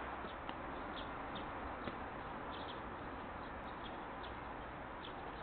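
Faint, scattered bird chirps over a steady outdoor background hiss.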